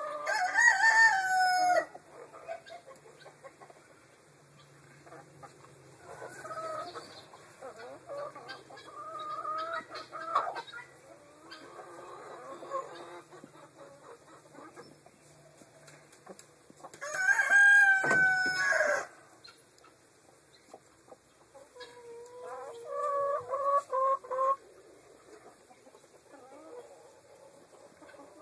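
Chickens clucking and calling. There are loud drawn-out calls at the very start and again about 17 seconds in, and a quick run of short repeated clucks a few seconds before the end.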